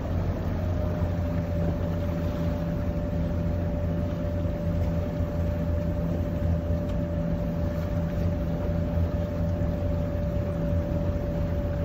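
A yacht's inboard diesel engine running steadily at about 1800 RPM, driving a Bruntons Autoprop at about 5.6 knots. It makes a low, even drone with a thin whine above it, and the whine dips slightly in pitch about half a second in.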